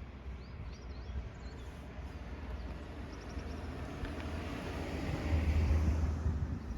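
A vehicle passing by: its noise swells gradually to a peak about five seconds in, then begins to ease.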